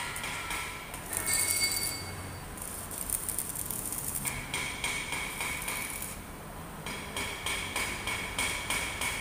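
Stick (arc) welder crackling and hissing in several runs with short breaks as the rod is struck on a seized engine bolt, welding it so that it can be turned out.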